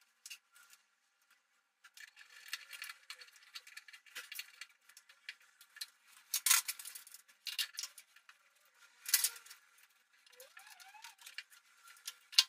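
Scattered clicks, taps and light scraping of hand work with tools and fittings, with louder knocks about six and a half and nine seconds in and a brief rising squeak near the end.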